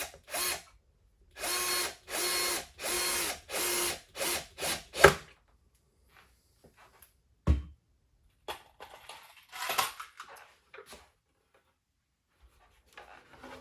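Power drill driving screws in a series of short pulses of motor whine, each about half a second to a second long, then a few quicker pulses ending in a sharp knock. A dull thump follows, and then some scattered handling noise.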